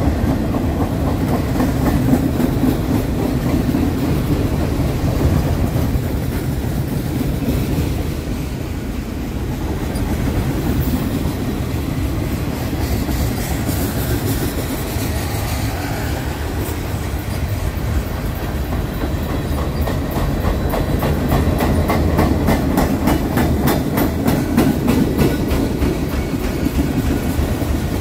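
Freight cars of a mixed train of boxcars, tank cars and covered hoppers rolling past: a steady low rumble of steel wheels on rail, with a regular clickety-clack of wheels over rail joints that grows plainer in the second half.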